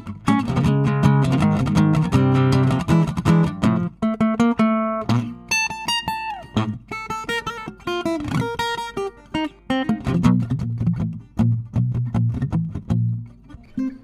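Segovia FC07 GN slim cutaway acoustic-electric guitar played solo, heard direct through its Artecs pickup preamp rather than a microphone: melodic plucked notes over bass notes, with a passage of high ringing notes about halfway through.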